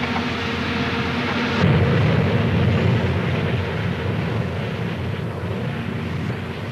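Outdoor construction-site machinery noise: a steady engine drone, joined about a second and a half in by a louder low rumble that eases off toward the end.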